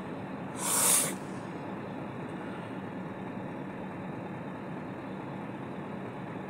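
Steady low hum of an idling engine, with one short, loud hiss lasting about half a second, about a second in.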